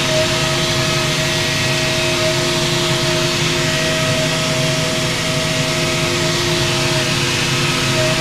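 CNC milling machine's spindle running an end mill through an aluminum block on an iMachining toolpath, cutting dry without coolant: a steady whine made of several held tones over a constant machining noise.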